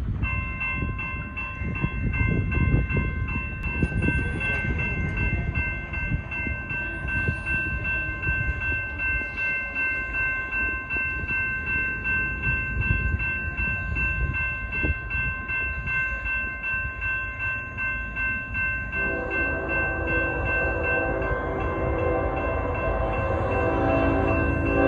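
Wind gusting on the microphone, then about three quarters of the way through a distant diesel locomotive's air horn starts sounding a steady chord, growing louder as the train approaches.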